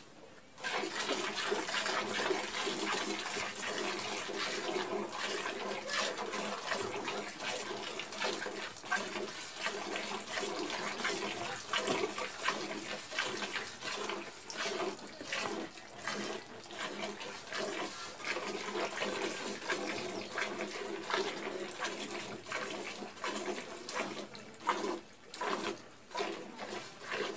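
Milk squirting from a cow's teats into a pail as it is milked by hand: a run of quick, uneven hissing squirts that starts just under a second in.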